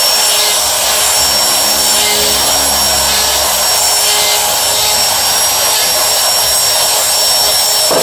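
Electric die grinder running steadily with a high whine, its burr grinding metal out of the bore of a Mikuni motorcycle carburetor to enlarge and port it.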